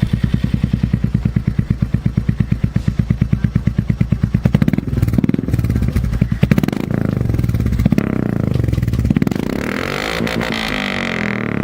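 Royal Enfield single-cylinder motorcycle with an aftermarket Red Rooster exhaust, idling with an even, rapid thump, then revved in several throttle blips from about halfway.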